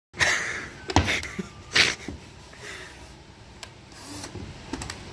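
Wood being worked by hand: a scrape right at the start, a sharp knock about a second in and another scrape just before two seconds, then quieter handling with a few small ticks.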